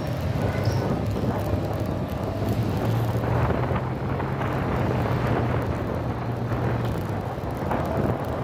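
Motorcycle engine running at a steady cruising speed, its low hum under heavy wind rushing over the microphone.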